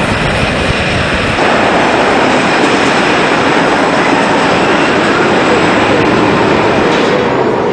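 Wooden roller coaster train (Timberliner cars) rolling past on its wooden track: a loud, steady rushing rumble of wheels on the running rails, growing louder about a second and a half in.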